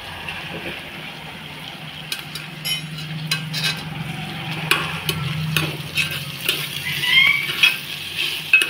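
Onions and spices sizzling in hot ghee in a pressure cooker, stirred with a spoon that scrapes and clicks against the metal pot; the clicks start about two seconds in.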